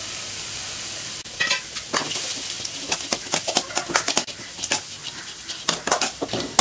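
Metal spatula stirring and tossing shredded cabbage in a metal kadai, which is frying on a low flame. A steady sizzle gives way, about a second in, to irregular scrapes and clinks of the spatula against the pan.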